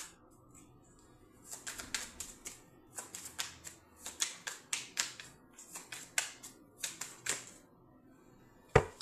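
Deck of playing cards being shuffled by hand: uneven runs of quick, sharp clicks of card edges slapping together, with one heavier knock near the end as the deck meets the table.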